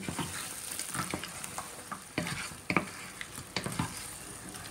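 A wooden spoon stirs shrimp, crab pieces, fish and chopped vegetables frying in palm oil in a pot, with irregular scrapes and light knocks against the pot over a steady sizzle.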